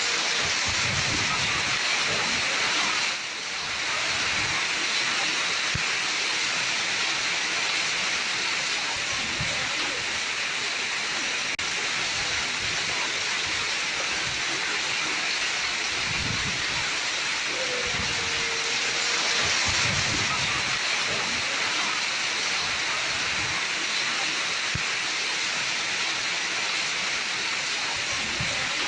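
Heavy rain with hail pelting down: a steady dense hiss with scattered low thumps.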